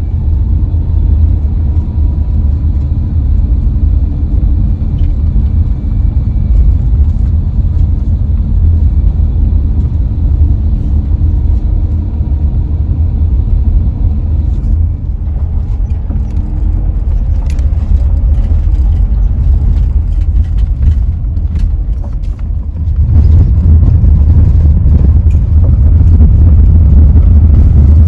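Steady low road and engine rumble heard inside a moving Dodge Grand Caravan minivan. It grows louder near the end, then cuts off suddenly.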